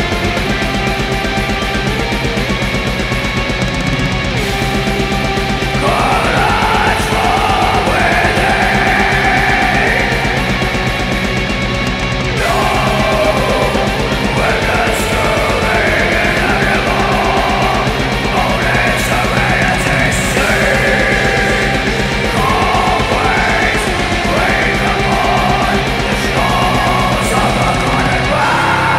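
Heavy metal recording: fast, dense drumming under distorted guitars, with vocals coming in about six seconds in. The drumming drops out just before the end, leaving a sustained low note.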